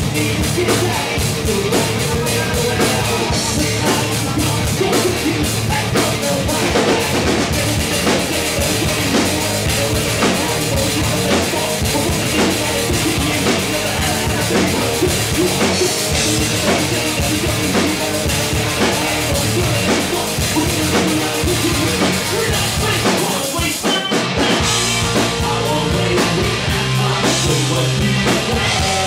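Live rock band playing loudly: drum kit pounding under electric guitar and bass. The full band drops out for a brief moment about three-quarters of the way through, then comes back in.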